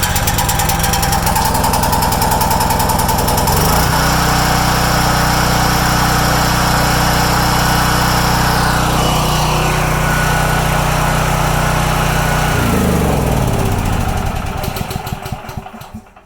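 Champion dual-fuel generator engine running on gasoline, its carburetor fuel solenoid freed by tapping: a sign the solenoid was sticking. It speeds up about four seconds in, runs steadily, then slows and dies away near the end.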